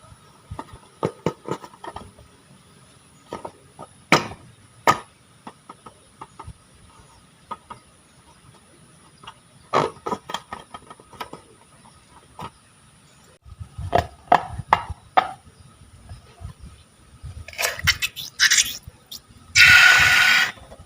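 Slime being worked by hand, making sticky clicks and crackling pops at irregular intervals. Near the end there is a loud hiss of about a second.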